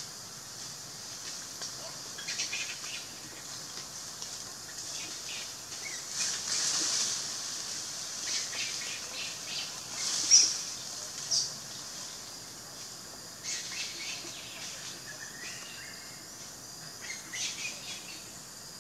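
Forest ambience: birds chirping in the tree canopy against a steady high hiss, with scattered short chirps and calls and a sharp bright chirp about ten seconds in.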